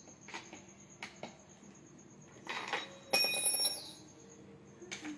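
Metal chair-assembly hardware clinking as a study chair is put together by hand: a few light clicks and knocks, then about three seconds in a louder ringing metallic clatter lasting under a second, and one more click near the end.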